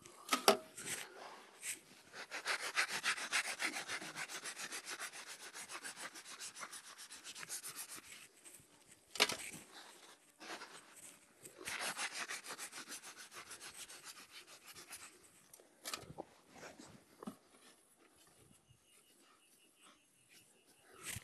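Dry dirt being brushed over a set dog trap to cover its jaws: two long spells of rapid scratchy strokes, with a few sharp knocks between them.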